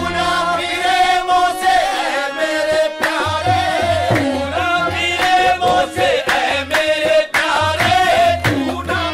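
Qawwali: a male lead voice sings with harmonium accompaniment while the chorus claps in rhythm and joins in.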